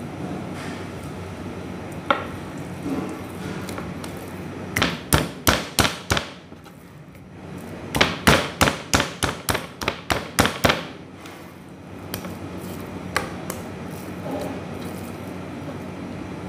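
Kitchen knife chopping into raw beef on a plastic cutting board: two quick runs of sharp knocks as the blade hits the board, the second longer, with a few single knocks before and after. A steady low hum runs underneath.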